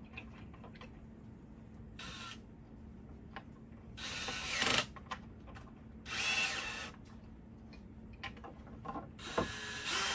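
DeWalt cordless drill fitted with a cut-down Allen-key bit, running bolts into the wooden rails of a loom frame. It comes in four short spins of about a second each, the first very brief, with small clicks of the bolts and wood between them.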